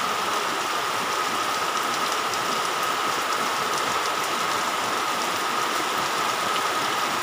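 Heavy typhoon rain pouring steadily onto the ground, with a constant, even hiss of rainfall and runoff.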